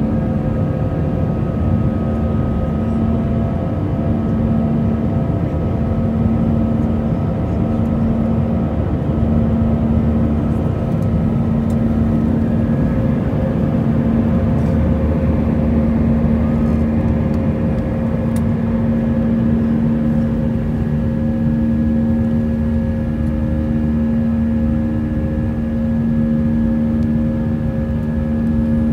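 Airbus A320 jet engines and rushing air heard from inside the passenger cabin during the climb after takeoff: a steady, loud drone with a few held humming tones over it.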